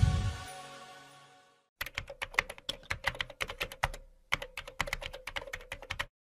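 A typing sound effect: a fast run of sharp key clicks, about eight or nine a second, with a short break a little past the middle. Before it, electronic music fades out within the first second.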